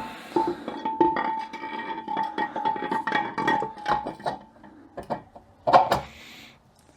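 Steel automatic-transmission parts clinking and clanking against each other as they are handled. One piece rings with a steady metallic tone for about four seconds under the rattling. Two sharper clanks come near the end.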